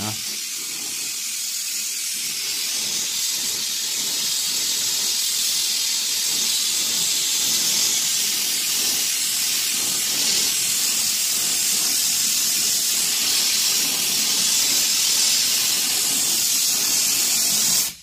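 Brass-handled gas torch burning with a strong, steady hissing flame while it heats a copper air-conditioner pipe red-hot; the hiss cuts off sharply right at the end.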